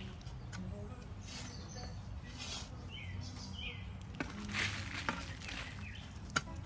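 A shovel scooping and dropping soil to backfill a planting hole, in several short scraping swishes, with a bird chirping briefly in the middle.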